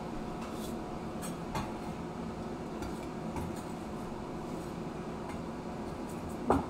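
Light clinks and taps of a knife and plate as cut scallion pancake wedges are moved from a wooden cutting board onto a plate, with one louder knock about six and a half seconds in, over a steady fan hum.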